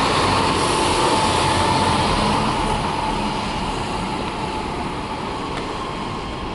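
Scania N280UB low-floor city bus's diesel engine pulling away and driving off, fading steadily as it recedes, with a thin whine over the engine noise that dips slightly in pitch.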